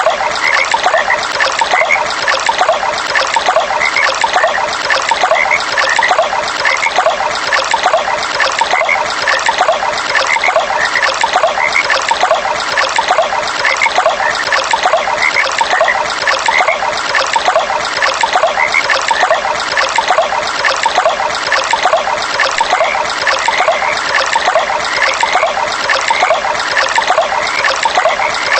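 Water trickling and running steadily over a stream bed, with frogs calling in short notes that repeat over and over above the flow.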